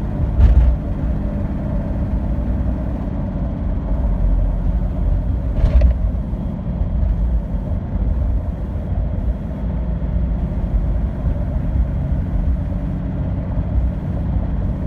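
Toyota 2H six-cylinder diesel engine running steadily with a ticking noise of unknown cause after a fresh rebuild. Two brief sharp noises come about half a second in and again about six seconds in.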